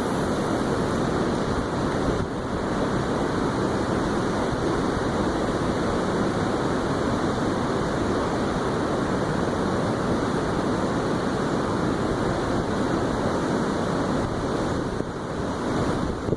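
Steady wind noise buffeting the microphone, a continuous low rushing.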